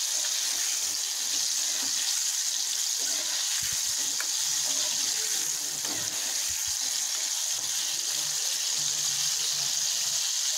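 Egg-and-flour-battered prawns frying in hot oil in a steel kadai: a steady sizzle.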